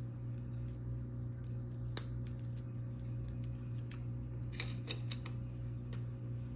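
A Rolex Datejust's metal link bracelet being handled: the clasp clicks sharply about two seconds in, then the links clink and rattle in a short cluster as the watch is set down on a tray. A steady low hum sits underneath.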